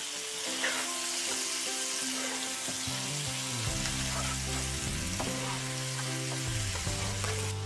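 Cubes of boiled pig's blood and sliced onion sizzling as they fry in lard in a frying pan, stirred with a wooden spatula. Steady low held tones run underneath.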